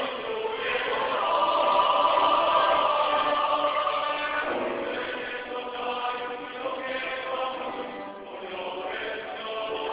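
Mixed-voice church choir singing sustained chords, swelling in the first few seconds and then growing softer, with a slight dip near the end. Recorded on a cell phone, so the sound is thin with no high end.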